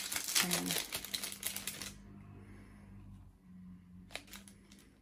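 Rapid crackling and clicking of plastic and card cosmetics packaging being handled, for about two seconds, then only a few soft clicks.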